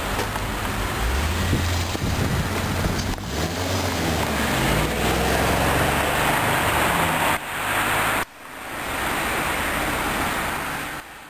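Jaguar XKR's supercharged V8 accelerating away, its engine note rising and falling with the revs, with wind noise on the microphone. Near the end the sound breaks off abruptly and is followed by a rising rush of road noise.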